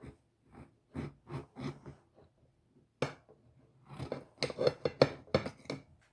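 Knife and kitchenware knocking and clinking while a lemon is cut, with a few separate knocks early and a dense run of louder clattering strokes near the end.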